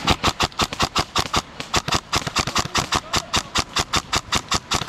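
Airsoft gun firing a long string of rapid shots, about eight sharp cracks a second, starting and stopping abruptly.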